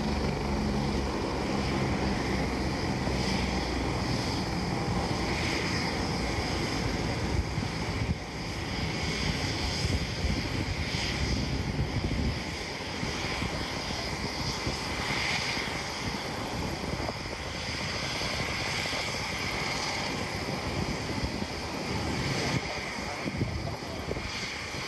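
A landed police helicopter's turbine and rotor running on the ground, with a steady hiss and a low rotor throb. The throb fades out about halfway through as the helicopter winds down.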